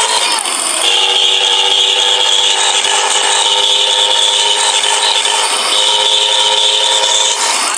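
Bus sound: a loud, steady drone of several held tones at once, which shift slightly in pitch about a second in and then hold without a break.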